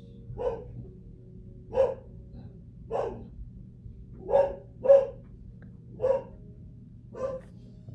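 A dog barking over and over: seven short single barks, roughly a second apart.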